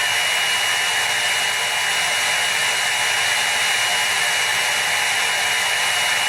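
Hair dryer running steadily: an even rush of blown air with a constant high whine over it.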